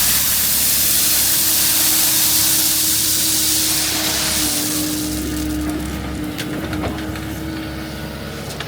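An engine running steadily under a loud hiss that lasts about the first five seconds and then eases off.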